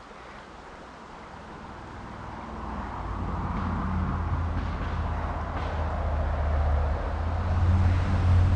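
A motor vehicle's engine humming low and steadily, growing louder from about two seconds in as it comes closer.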